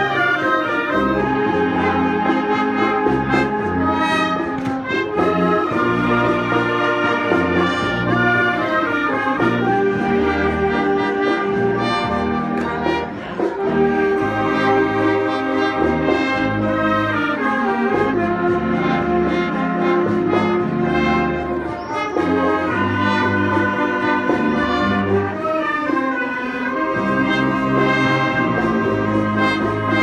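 Concert wind band playing: brass, clarinets and saxophones together in held chords that change every second or two, with a steady low bass line.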